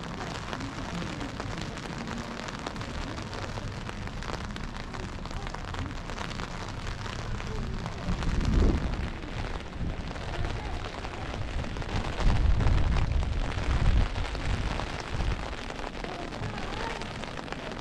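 Steady rain hiss in a town street, with a low rumble swelling about eight seconds in and another, longer one around twelve to fourteen seconds.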